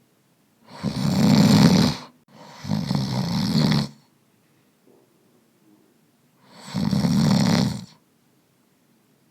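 Snoring in slow breaths: two snores back to back starting about a second in, then a pause and one more snore near the end, each a low rumble with a breathy hiss over it.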